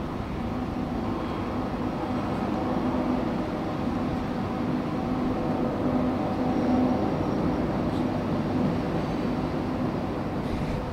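BNSF diesel locomotives and their coal train running steadily across a steel trestle: a continuous low rumble with a steady engine hum.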